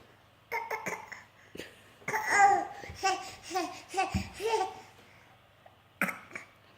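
Laughter: a run of about five short pitched syllables, each rising and falling, after a louder burst. Short cough-like bursts come about half a second in and again near the end.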